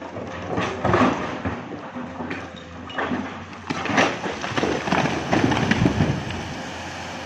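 Earth and rock dumped off a cliff top by an excavator, tumbling down the rock face with a rumble and repeated crashes. It is loudest in the second half, as the mass hits the water below with a splash.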